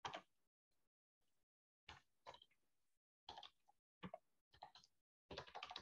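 Faint, scattered clicks of computer keys and mouse being pressed, in small groups about a second apart with a quicker run near the end.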